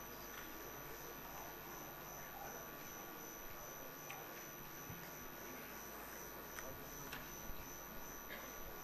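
Quiet room tone with a steady electrical mains hum and a faint, steady high-pitched tone, broken by a few faint clicks.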